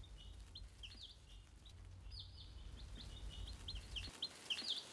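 Day-old chicks peeping: many short, high chirps in quick succession, over a faint low hum that cuts off about four seconds in.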